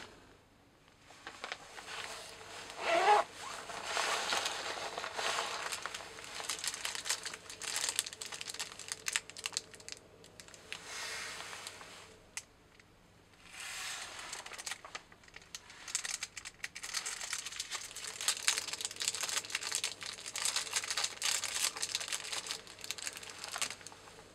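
Thin clear plastic wrapper crinkling and tearing as hands work at it, in uneven spells of crackling with short pauses. A brief rising squeak about three seconds in is the loudest moment.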